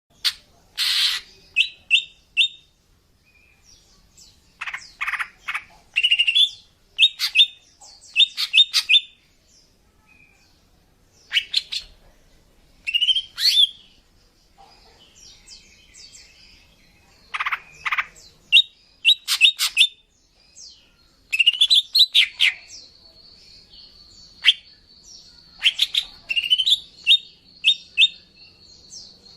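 Female greater green leafbird (cucak ijo) calling: sharp chirps and short quick trills in clusters with short pauses between. A thin steady high note runs under the last third. This is a lure call meant to draw in males.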